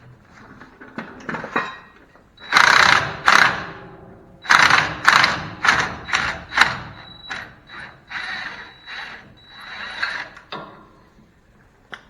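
Impact wrench run in about six short, loud bursts in two groups, then several lighter bursts, working the bolts of a 2001 Chevrolet Silverado K2500's front wheel hub during a hub and bearing removal.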